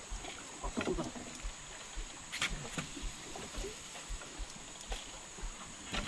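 Narrow log canoe being paddled along a small river: soft paddle splashes and a few light knocks against the hull, over a steady high-pitched drone.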